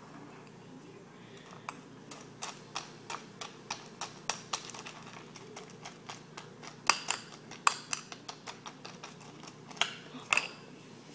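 A metal spoon clinking against a ceramic cereal bowl while eating. The clinks are short, sharp and uneven, starting a couple of seconds in, with a few louder knocks in the second half.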